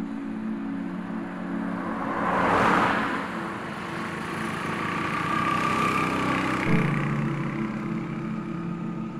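Road traffic passing: one vehicle swells past about two and a half seconds in, then a motorcycle engine passes around six seconds in. Sustained background music chords run underneath.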